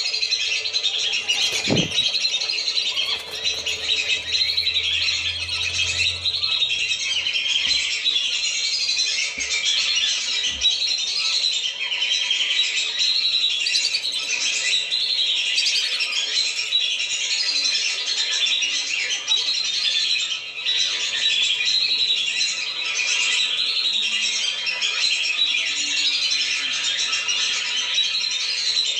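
A flock of whistling ducks (belibis) giving dense, continuous high whistling chatter, played as a lure call to draw the birds down.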